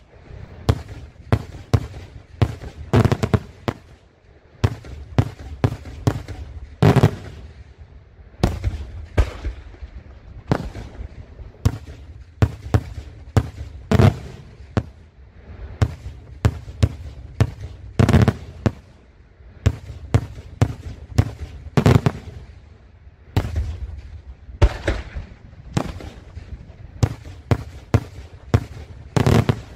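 Daytime fireworks: aerial shells bursting overhead in a rapid, irregular string of sharp bangs, roughly two a second, with a low rumble between them.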